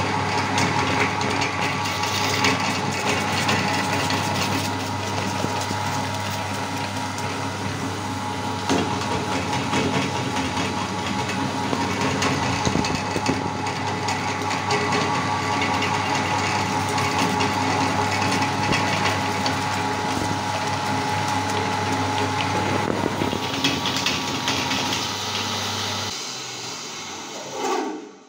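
Electric meat grinder running with a steady motor hum while its auger crunches and crushes hard items fed into the hopper; the motor cuts off about two seconds before the end.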